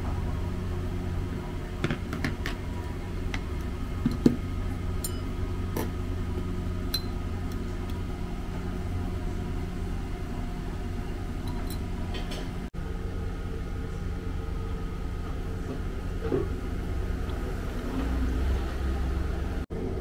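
Steady low room hum with a few light clinks of glass condiment bottles and a spoon against a small ceramic dish.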